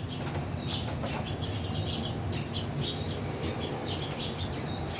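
Small birds chirping rapidly and repeatedly, over a steady low hum.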